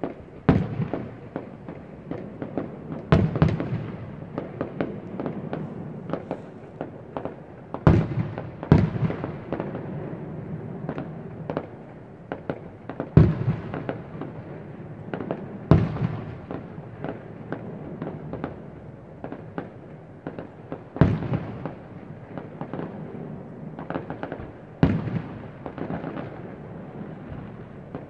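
Fireworks display: aerial shells bursting with sharp bangs every few seconds, each trailed by an echoing rumble, with smaller crackles and pops in between.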